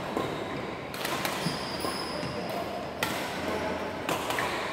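Badminton rackets striking shuttlecocks: four sharp hits at irregular intervals, ringing in a large hall.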